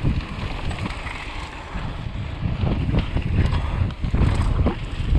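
Wind rushing over an action-camera microphone as a mountain bike descends a hardpacked dirt trail, with tyre rumble and short knocks and rattles from the bike over bumps. It gets louder about halfway through.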